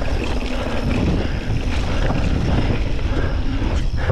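Wind rumbling on the microphone over the noise of a mountain bike rolling down a rocky dirt trail, with tyre crunch and short rattles and clicks from the bike.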